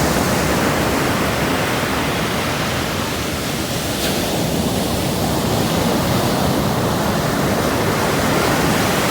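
Steady rushing noise of sea surf and wind buffeting the microphone, with no distinct events.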